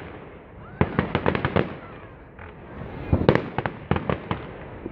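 Fireworks going off in a display: quick clusters of sharp cracks and pops, a loud burst of them about three seconds in, over a continuous crackling rumble.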